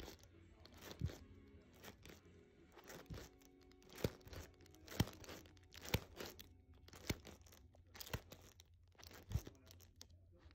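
LP record jackets being flipped forward one by one in a cardboard box: a sharp slap about once a second as each sleeve falls against the next, with rustling of the sleeves in between.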